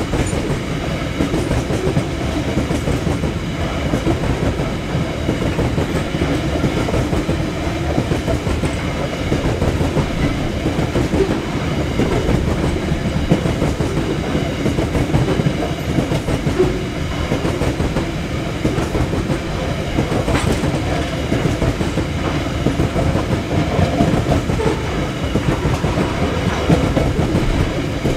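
CET coal hopper wagons of a freight train rolling past close by at speed: a loud, steady noise of steel wheels running on the rails.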